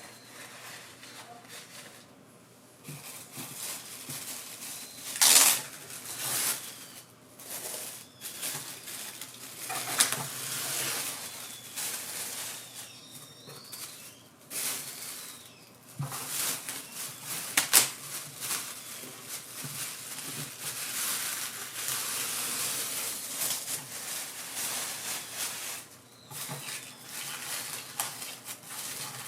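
Hand-work noises: rustling and scraping, with a few sharp knocks.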